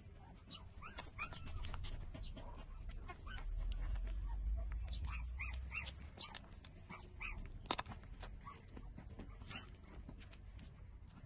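Nursing four-week-old puppies whimpering in many short, high squeaks, mixed with small clicks. A low rumble runs through the middle, and there is one sharp click about two-thirds of the way through.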